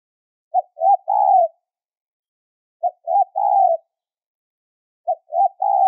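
Spotted dove cooing: three phrases a little over two seconds apart, each two short coos followed by a longer, drawn-out one. A high-pitched call of the kind used as a lure for trapping spotted doves.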